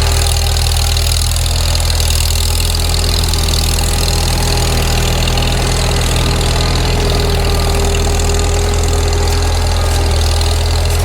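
Tractor engine running steadily at one even speed: a deep, unbroken drone with no revving.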